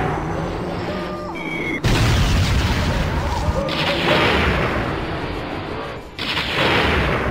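Cartoon fire-blast sound effects: three loud rushing bursts, each starting suddenly and fading over a second or two, over background music.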